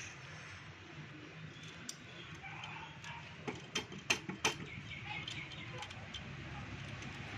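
A handful of sharp metal clicks and taps in quick succession about halfway through, from parts of a Honda Activa scooter's cylinder head being handled and fitted, over a low steady background hum.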